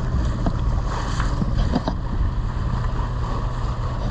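Bayfield 32 sailboat under motor: a steady low drone from its inboard engine under wind on the microphone and water washing past the hull, with a few short splashes in the first two seconds.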